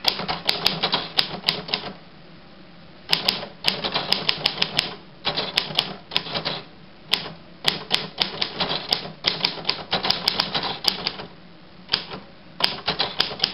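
A 1948 Royal Quiet DeLuxe portable manual typewriter being typed on: runs of quick sharp key strikes in bursts, with short pauses about two seconds in and again near the end, as a test sentence is typed to check every key.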